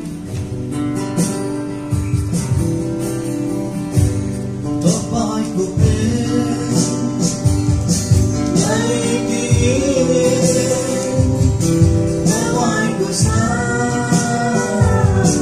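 Acoustic guitar strumming a song accompaniment, with a duet's singing coming in about five seconds in and carrying on over the guitar.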